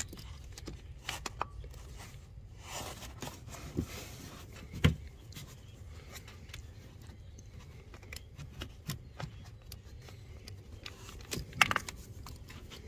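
Small quarter-inch ratchet and socket working a coil-pack bolt among plastic parts and wiring, giving scattered faint clicks and scrapes. A sharper knock comes about five seconds in and another near the end.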